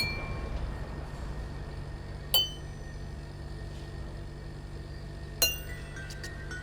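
Three sharp glass clinks a few seconds apart, each ringing briefly, over a low steady hum.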